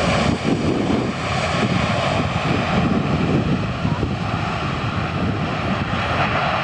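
Boeing 747-400's four turbofan engines running as the airliner rolls out on the runway after landing: a loud, steady jet rumble with a faint steady whine in it.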